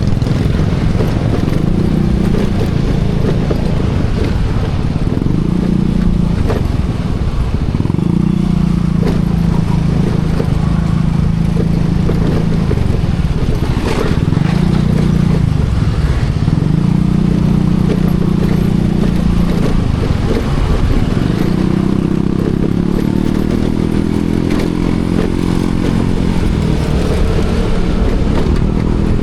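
Small motorcycle engine running as it rides, its pitch rising and falling with the throttle, over a steady rush of wind and road noise.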